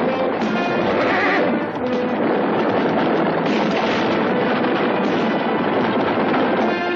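Action-scene music over the hoofbeats of several galloping horses, with a horse whinnying.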